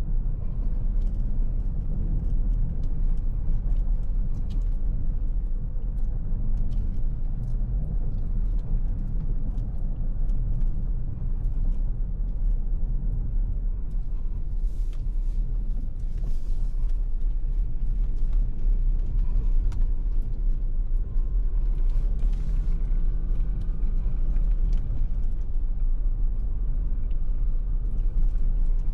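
Steady low rumble of a Ford Territory hybrid SUV driving, road and tyre noise heard from inside the cabin, with scattered light ticks.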